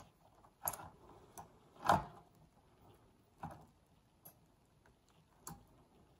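Scattered small clicks and knocks of metal and plastic parts as the flywheel is worked out of a cassette tape mechanism, about six in all at uneven spacing, the loudest about two seconds in.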